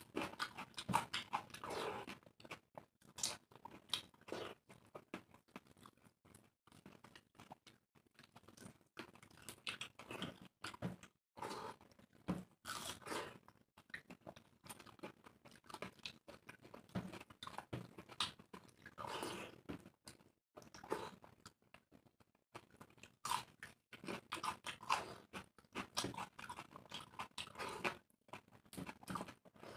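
Two people eating moong dal khichdi with their hands, close to the microphone. Irregular chewing, lip-smacking and crunching mouth sounds go on throughout.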